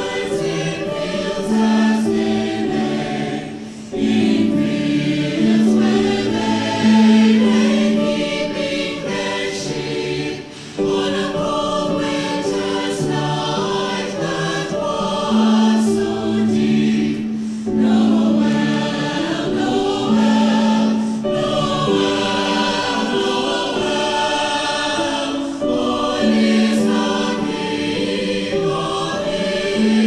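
Mixed choir of men and women singing.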